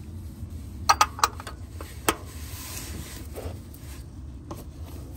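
Metal-on-metal clicks as a combination wrench is set onto a cap-type oil filter wrench on a Toyota Prius oil filter housing, a few sharp ones between one and two seconds in, then a short rasping scrape as the housing is turned and broken loose.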